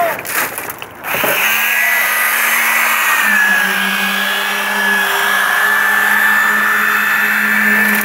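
Electric power tool motor starting up about a second in and running steadily with a hum and a high whine, settling slightly lower in pitch about three seconds in.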